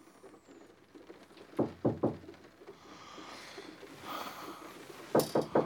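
Three quick knocks on a wooden door, then three more about three and a half seconds later.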